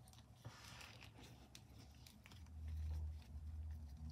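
Faint rustling and light clicks of a knit doll shirt being pulled over a plastic fashion doll, with a low steady hum coming in about two and a half seconds in.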